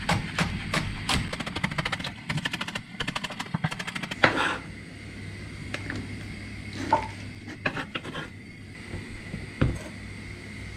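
Kitchen knife chopping spring onions on a cutting board: a run of quick, even chops that speeds up to about ten a second in the middle, then a few scattered single knocks. A steady low hum runs underneath.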